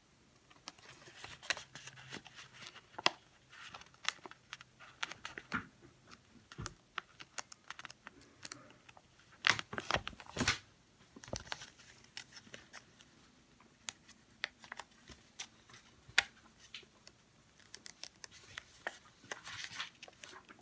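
Sheet of paper being handled and folded by hand close up: scattered crinkles, rustles and small clicks, with a few sharper crackles about halfway through.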